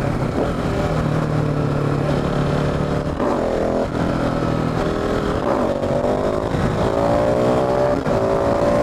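KTM 690 SMC R supermoto's single-cylinder engine under way, heard from a microphone inside the rider's helmet over wind noise. It runs steadily for about three seconds, then climbs in pitch as the bike accelerates, dropping back briefly at each of several upshifts.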